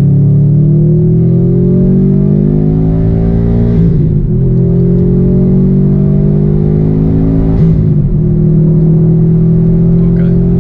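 Subaru turbocharged flat-four engine, heard from inside the cabin, accelerating through the gears. Its pitch climbs, drops at an upshift about four seconds in, climbs again, drops at a second upshift near eight seconds, then holds steady.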